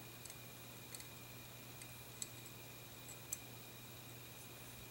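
A few faint, irregular metal clicks as a steel punch nudges the lifter inside the frame of a Harrington & Richardson American Double Action revolver.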